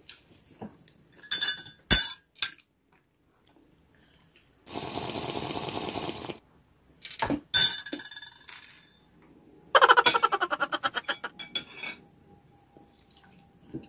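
Cutlery clinking against plates, then a long, loud slurp of a drink from a glass about five seconds in. More clinks follow, and near the end there is a rapid run of rattling clicks.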